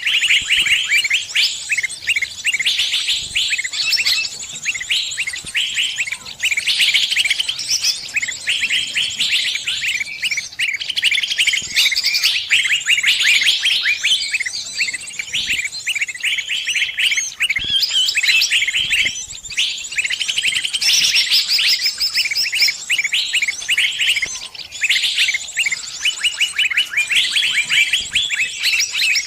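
Small birds chirping and twittering: fast, high chirps and trills, one after another without a break.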